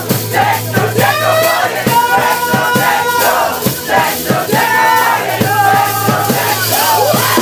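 A live band playing a song at close range, with a singer over electric bass and a steady beat, and a packed crowd joining in.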